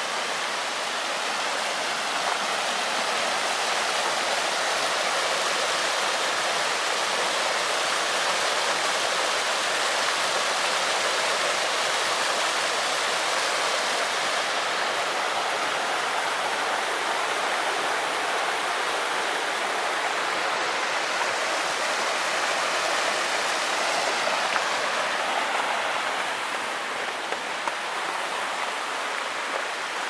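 River rapids: the Black River rushing over rocks and a small cascade, a steady dense rush of whitewater that eases slightly near the end.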